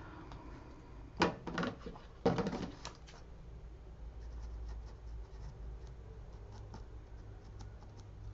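Kraft paper crinkling and scraping as a notebook cover is folded and handled, in two short clusters of rustles in the first three seconds, then only faint light ticks.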